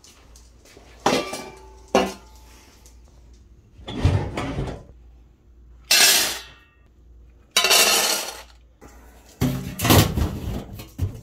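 Stainless steel pet bowls clanking twice with a short ring, then dry kibble scooped and poured into a steel bowl in two rattling pours. A metal can lid clatters near the end.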